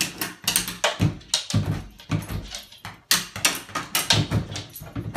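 Pet-door flap clattering and knocking over and over as a dog pushes at it, irregular knocks about two or three a second.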